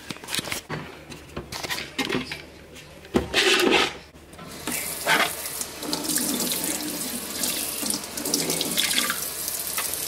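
A few knocks and rustles of handling, then, about halfway through, a kitchen tap starts running into a stainless steel sink. The stream splashes steadily over a plastic cutting board held under it for rinsing.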